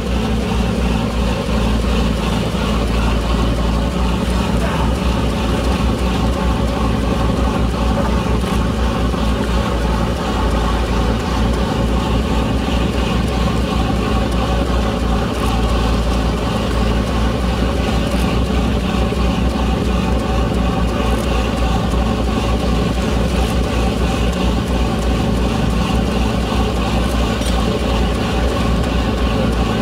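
Lifeboat's diesel engines running steadily at low revs close by, a loud, even low hum.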